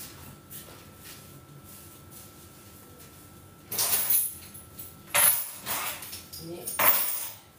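Kitchen counter work: a few seconds of faint handling clicks, then four short, loud bursts of hissing noise from about halfway in.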